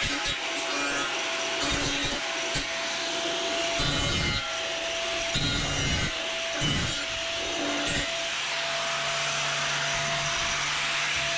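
Continuous scraping and rasping of hand work on a hard material, with a faint steady whine underneath and a few dull knocks.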